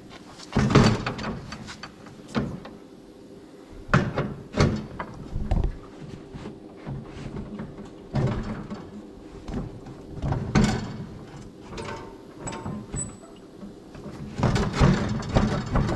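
Irregular metal clunks and knocks with scraping between them, from a jack being let down and handled under a riding mower's front axle. Loud groups come about half a second in, around four seconds in, and near the end.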